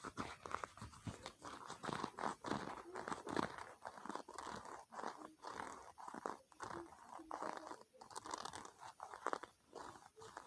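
ASMR tapping, clicking and brushing on objects: a dense, irregular run of crisp taps with brushing noise between them.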